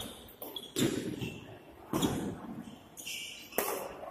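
Badminton rackets striking a shuttlecock three times in a doubles rally: sharp hits about 1, 2 and 3.5 seconds in, each echoing in the large hall.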